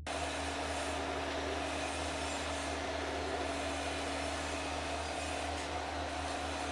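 Small 12-volt cooling fan on the amplifier running steadily: an even airy rushing noise with a constant low hum and a steady mid-pitched tone beneath it.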